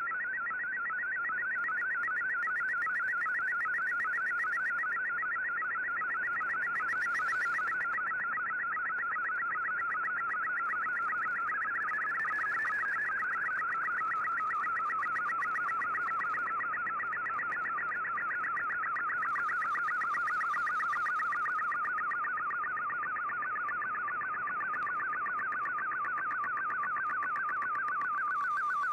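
Shortwave digital picture transmission in MFSK image mode, heard through a communications receiver: a rapid, steady warbling data tone that wavers in pitch as it carries a colour picture line by line, settling a little lower about halfway through, over faint static hiss.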